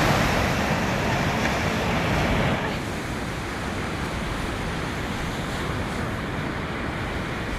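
Sea surf washing up a beach, a steady rush of water noise that is louder for the first two and a half seconds and then drops a little and carries on.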